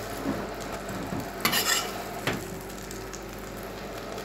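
Garlic-and-parsley butter sizzling in a frying pan, with a metal spoon knocking and scraping as fried dumplings are lifted out and set on plates. A short sharp scrape a little past halfway is the loudest sound.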